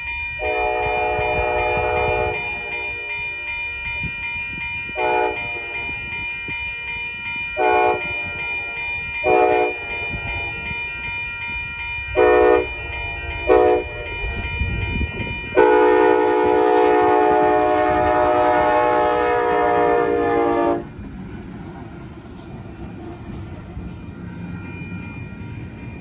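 Freight locomotive's air horn sounding as the train approaches: one long blast, five short blasts, then a long blast of about five seconds. After the horn stops, the low rumble of the train passing close by.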